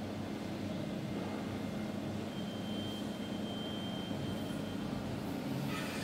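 Steady low drone of heavy diesel engines at a concrete slab pour, from the boom pump and ready-mix trucks feeding it, with a faint high whine for a couple of seconds in the middle. Music comes in near the end.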